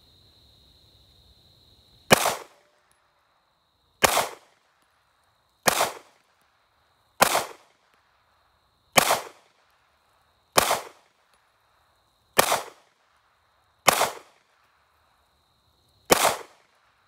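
Sig Sauer P365 9mm semi-automatic pistol firing nine single shots, one every one and a half to two seconds, each sharp report trailing off briefly.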